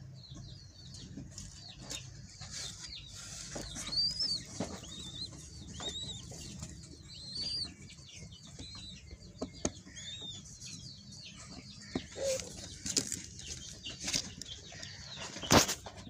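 Caged birds in an aviary: many short, high chirps repeat throughout, with wings fluttering and rustling now and then. A sharp knock comes near the end.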